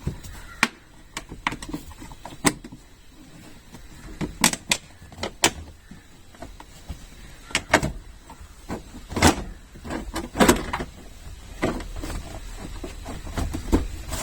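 Plastic interior trim cover of a Maruti Alto K10 being worked loose and pulled off by hand: irregular sharp clicks and knocks as its clips let go.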